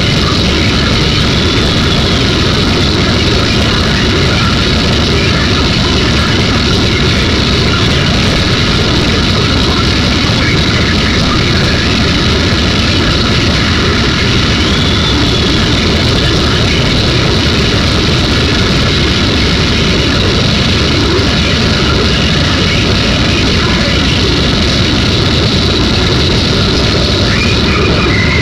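Loud, unbroken wall of dense noise with a heavy low rumble, steady throughout: harsh noise music accompanying a stage performance.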